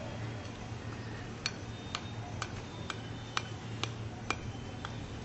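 Hammer striking metal, eight sharp clinks at an even pace of about two a second, starting about a second and a half in, over a steady low hum.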